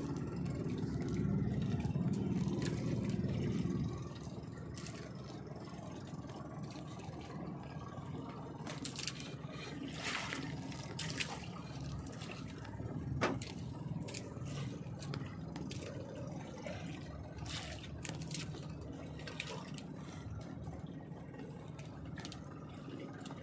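Sea water lapping and sloshing against a small outrigger boat's hull, with scrapes and knocks as a fishing hand line is hauled in over the side. A low, steady rumble in the first four seconds stops abruptly.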